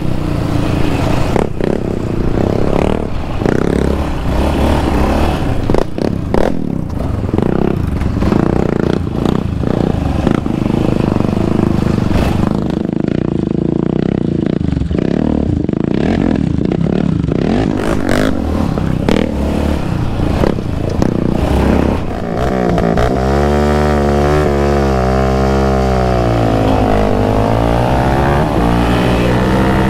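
Yamaha Raptor 700R sport quad's single-cylinder engine running hard along a dirt trail, with rattles and knocks from the ride over rough ground. From about two-thirds of the way in, the engine note rises and falls again and again as the throttle is worked.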